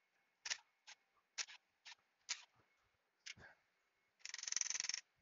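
Hand ratchet working on the water pump bolts of an Audi 3.0 V6: single sharp clicks about every half second, then a fast run of ratchet clicks lasting under a second near the end.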